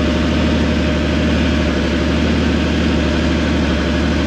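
Robinson R44's fuel-injected six-cylinder Lycoming piston engine running steadily at about 50–60% RPM just after a cold start, with an even, rapid firing rhythm.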